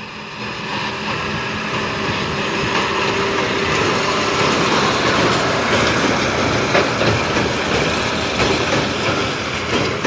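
John Deere 6215R tractor's six-cylinder diesel running under load as it pulls a John Deere 1433 large square baler, which is picking up and baling hay. The noise grows louder over the first few seconds as the outfit comes closer, then holds steady.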